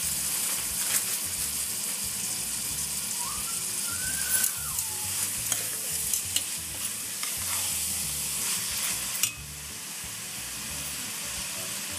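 Minced meat frying in a stainless steel pot while a metal spoon stirs it, with a steady sizzle and scattered clicks of the spoon against the pot. The sizzle drops to a softer level about nine seconds in.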